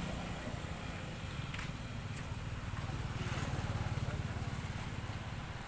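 An engine running steadily, a low even throb.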